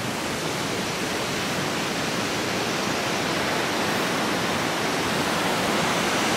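Water gushing out of a dam outlet and churning as white water in the concrete channel below: a steady rushing noise that grows a little louder toward the end.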